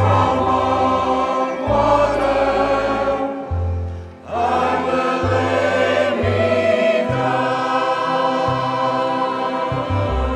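A choir singing long held chords over instrumental accompaniment with a moving bass line, with a brief break about four seconds in.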